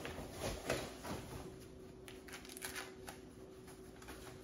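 Denim jacket rustling and brushing as it is pulled on over the shoulders and settled, a series of short, soft scrapes of cloth, over a faint steady hum.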